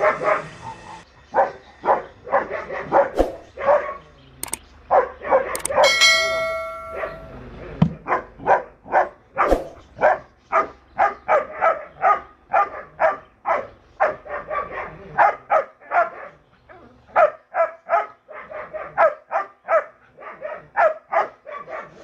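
German shepherd barking in a long, steady series, about two barks a second. A brief ringing tone sounds about six seconds in.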